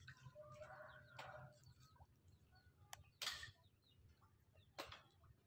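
Near-silent outdoor ambience with faint calls in the first second or so, a few soft clicks, and a short rustle about three seconds in.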